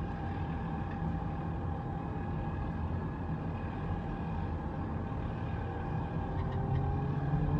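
Steady low rumble of a car driving along a road, heard from the filming car, with a faint tone rising gradually near the end as it picks up speed.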